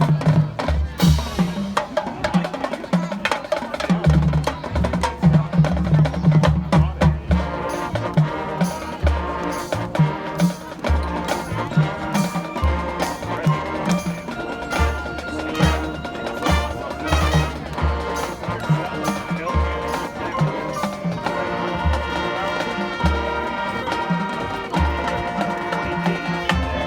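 High school marching band playing a show tune: the drum line keeps a steady beat of bass drum and snare hits, and the horns come in more fully about a third of the way in.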